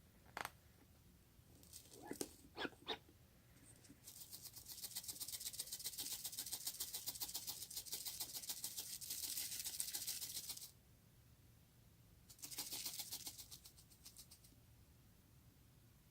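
Slime being mixed and squished, making quick, fine crackling clicks. A few separate taps come first, then a run of about six seconds, then a shorter run of about two seconds.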